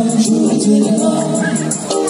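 Bengali song music playing for a stage dance, with melody over a steady beat of light percussion.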